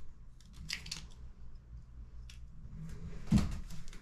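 Small clicks and rustles of a plastic shower-head wall mount and its peeled-off adhesive liner being handled, then a dull knock about three and a half seconds in.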